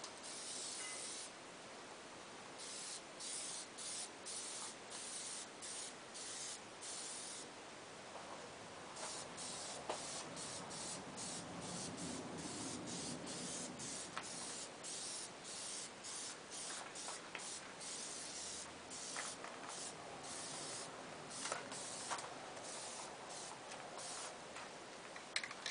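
Liquid vinyl wrap being sprayed in a long series of short hissing bursts with brief gaps between passes, laying down a first coat.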